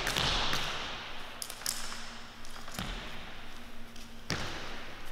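A jump rope and sneakers on a wooden sports-hall floor: about four sharp taps at uneven intervals as the rope slaps the floor and feet land during a leg-wrap rope trick, over a faint hiss.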